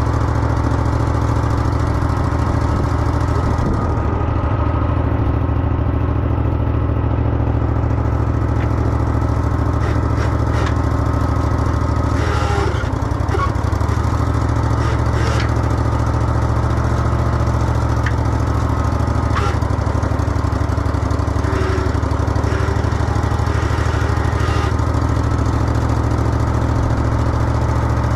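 Old skid steer's engine running at a steady idle, with a few sharp knocks now and then.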